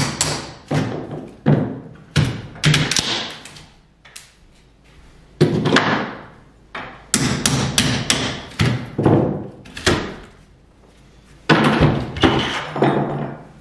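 Hammer blows on a fireplace's wooden MDF and crown trim, about one every half second or so, then, after a short pause, the boards cracking, knocking and scraping as they are pried and torn loose.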